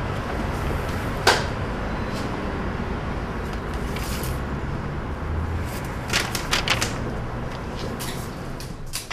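Papers and objects being handled in a drawer: a sharp knock about a second in, then a quick run of clicks and rattles around six seconds in and a few more near the end, over a steady low hum.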